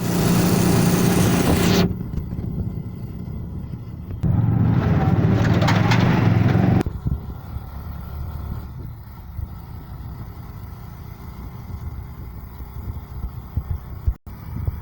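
A motor vehicle's engine running with a steady low hum, loud for about two seconds at the start and again for a couple of seconds in the middle, each time stopping abruptly, over a quieter rumble.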